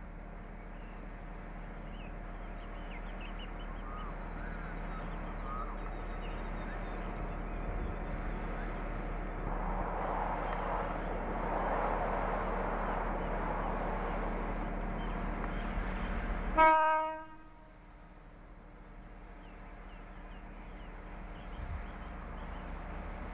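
Diesel locomotive engine running with a steady hum, slowly growing louder, then one short horn toot about two-thirds of the way through. After the toot the engine sound drops away abruptly and slowly returns near the end. Faint bird chirps sound over it.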